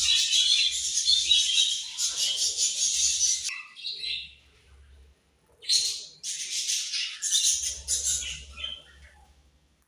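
Budgerigars chirping and chattering in a dense, busy stream. The chatter breaks off for about a second halfway through, starts up again, then trails off near the end.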